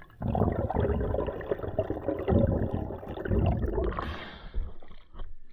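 Water rushing and gurgling over a mask-mounted camera as a freediver swims up from depth, with a splashing hiss as he breaks the surface about four seconds in.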